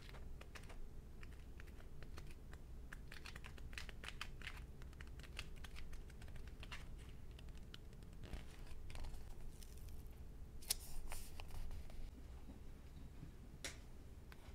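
Pages of a paper sticker book being leafed through by hand, a long run of small papery clicks and flaps, with a short cluster of louder ones about two-thirds of the way through.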